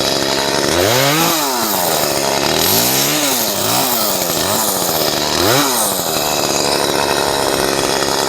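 Gas chainsaw revved up and let back down about five times in quick succession, then left idling steadily from about six seconds in.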